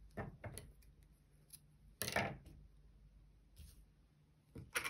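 Yarn and knitted fabric being handled: a few short, separate rustles, the loudest about two seconds in.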